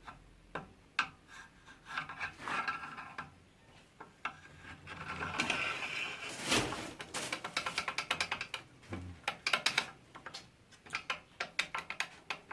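Plastic miter gauge being slid along the slot of a mini band saw's table and jiggled, giving scattered clicks, a longer scrape about halfway through, then quick rattling clicks as the gauge shifts about in a slot where it still has some play.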